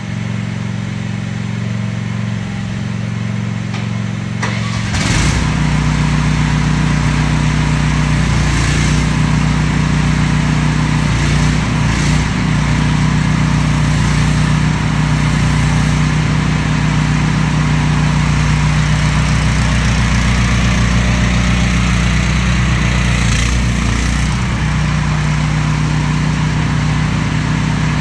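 AGT Industrial QH13R mini excavator's engine running while its hydraulic boom, arm and bucket are worked. It grows louder and deeper about five seconds in, with a few brief knocks.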